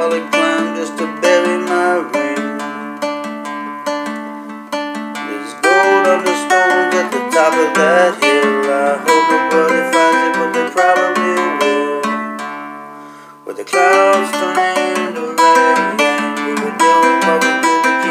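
Nylon-string classical guitar playing chords, each one ringing and decaying. Near the middle the notes die away almost to nothing, then a sharp strum brings the playing back in.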